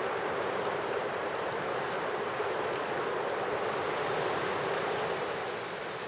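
Steady rush of a shallow river rapid, water pouring over rocks, easing slightly near the end.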